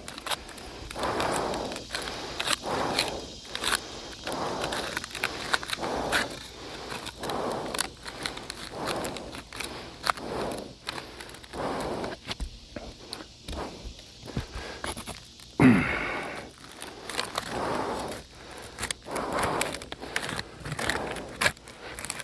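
A pry tool scraping under asphalt roof shingles to break their sealant strip and separate the tabs, in repeated strokes about every second or so, with one louder sound about two-thirds of the way through.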